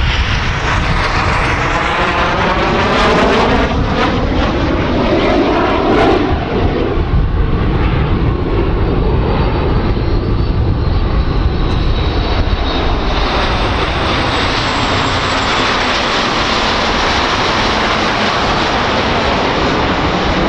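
Canadair CT-114 Tutor jets flying past, their single turbojets making a loud, steady rushing roar. In the first six seconds or so a sweeping, phasing whoosh falls and then rises as they pass.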